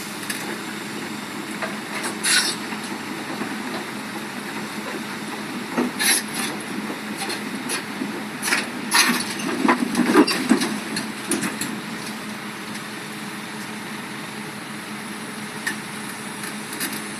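Komatsu PC200-8 excavator's diesel engine running steadily with a constant hum, with scattered sharp knocks and cracks, most of them bunched together in the middle.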